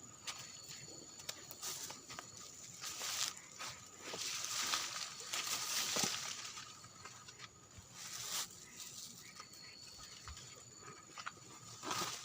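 Rustling and brushing through swamp-forest undergrowth as someone walks and pushes through vegetation, in irregular swishes with a longer stretch in the middle, over a steady high-pitched drone.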